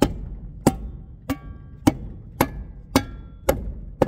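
Rubber mallet hammering a galvanized steel ICF ledger bracket into foam, eight steady blows about two a second. A few of the blows leave a short metallic ring from the bracket.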